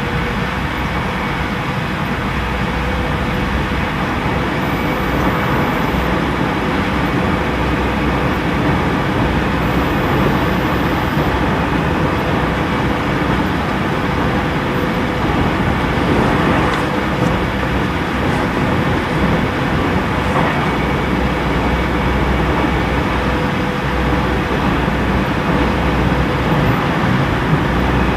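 Steady interior running noise of a JR Central 313 series electric train at speed: wheels rumbling on the rails, with the loud hum of the car's air conditioning.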